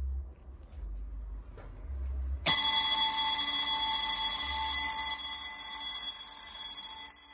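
Restored vintage electric fire bell, a twin-gong bell with its clapper between the two domes, starts ringing suddenly about two and a half seconds in and rings continuously with a high metallic ring. Near the end the ringing stops and the gongs ring on as they fade.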